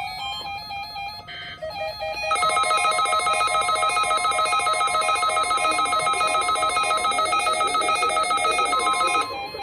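NOAA Weather Radio warning alarm tone sounding for the weekly test: a loud steady tone, about seven seconds long, that cuts in about two seconds in over light background music and stops shortly before the end.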